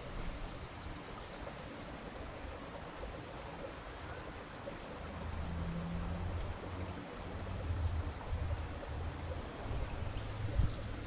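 Insects trilling steadily at one high pitch, with a low, uneven rumble coming in about halfway through.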